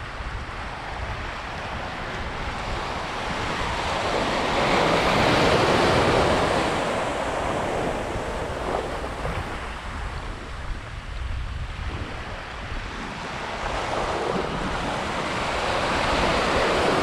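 Ocean surf washing in over sand and around jetty rocks, swelling louder about five seconds in and again near the end, with a steady rumble of wind on the microphone.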